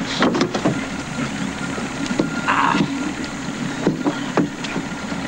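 A small boat's motor idles steadily, with a few knocks and a brief scrape as people clamber aboard.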